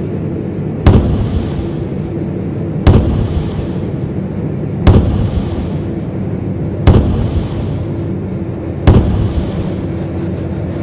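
JNR-built diesel railcar running slowly, heard from inside: a steady engine drone with a few held tones. A sharp knock comes every two seconds, six times, each one the loudest thing heard.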